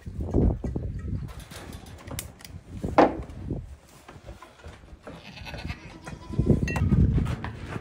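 Goats bleating now and then, one short call about three seconds in, with low rumbles and bumps near the start and again near the end.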